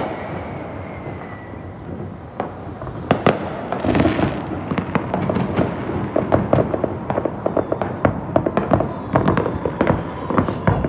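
Fireworks going off: a faint falling whistle at first, then scattered sharp bangs that build into dense, rapid crackling pops.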